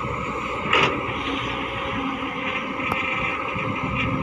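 Diesel engine of a Cat crawler excavator running steadily under load as it digs, with one short loud knock a little under a second in.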